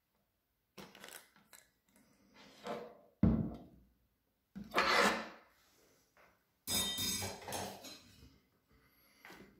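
Knocks, clicks and thunks of a SilverCrest hand blender's plastic and stainless-steel parts being handled, as the motor unit is lifted off the chopper bowl's lid and laid down on the counter. The loudest is a low thump about three seconds in, and a longer rattling scrape follows near the end.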